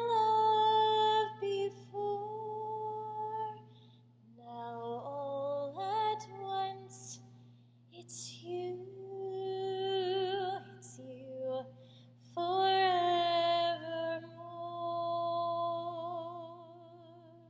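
A woman singing solo and unaccompanied in a theatre's open acoustics, practising repertoire: long held notes with vibrato, a rising run of notes partway through, and a few hissed consonants between phrases.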